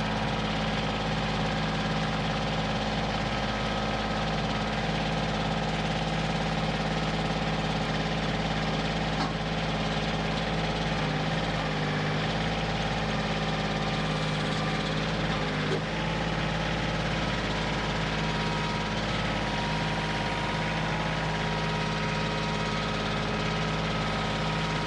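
Kioti CK2610 compact tractor's diesel engine running steadily while its grapple lifts a sawn slab off the log on the sawmill.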